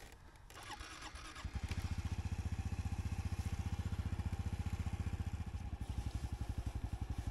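Honda Super Cub's single-cylinder four-stroke engine catching about a second and a half in, then idling with a steady, rapid low pulse.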